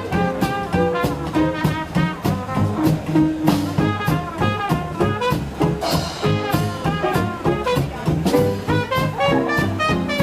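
Traditional jazz band playing an instrumental chorus at a swing tempo: trumpet and trombone lines over a steady rhythm-section beat.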